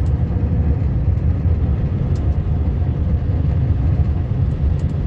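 Vehicle driving on a snow-covered gravel road, heard from inside the cab: a steady low rumble of engine and tyres, with a few light rattles from the bumpy surface.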